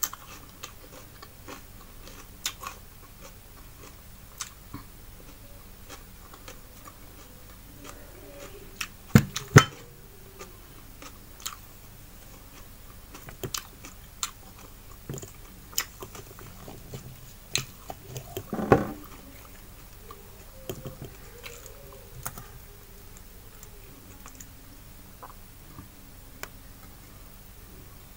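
A person eating by hand, chewing fried fish with chopped raw onion and tomato close to the microphone: soft wet mouth clicks and smacks scattered throughout. There are louder bursts twice about a third of the way in and once a little past the middle.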